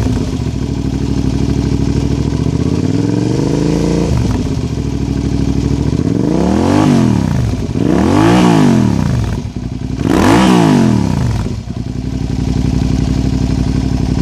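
2003 Suzuki SV650's 645 cc V-twin running through a Delkevic carbon-fibre slip-on silencer, idling. The revs climb slowly about three seconds in and drop back, then three quick throttle blips follow in the second half before it settles to idle.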